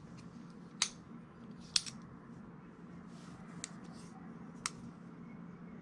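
Axis-lock folding knife being worked, its blade swinging on a bearing pivot and the lock clicking: several sharp metallic clicks about a second apart.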